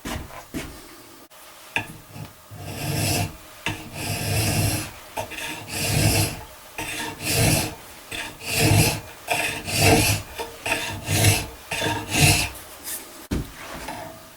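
A file drawn along a rifle barrel in about ten rasping strokes, a little over a second apart, after a few knocks of handling at the start: draw-filing the barrel to take out its waviness.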